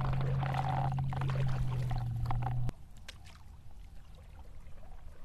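A steady low hum with splashy noise over it cuts off abruptly about two and a half seconds in. After that come quieter water sounds of a kayak paddle dipping and dripping.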